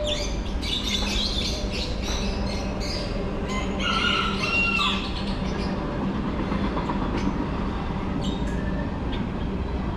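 Caged birds chirping and squawking, busiest in the first half, over a steady low mechanical hum.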